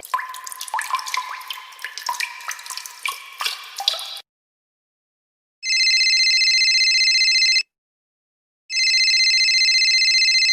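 Sound-effect clips: about four seconds of rapid, irregular water drips, cutting off suddenly. After a short silence comes an electronic ringing tone, sounded twice, each ring about two seconds long with a second's gap between.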